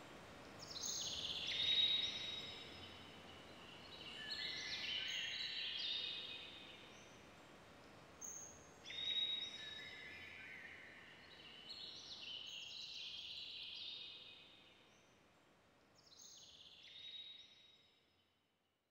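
High-pitched chirping in repeated falling phrases over a faint hiss, dying away to silence near the end.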